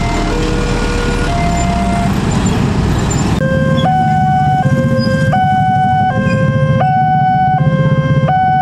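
Electronic two-tone level-crossing alarm from the signal's loudspeaker, alternating between a lower and a higher tone about every 0.7 seconds, over a low rumble of motorbike and car engines. About three seconds in it switches abruptly to a second crossing's alarm, a little higher-pitched and louder, with the same slow alternation.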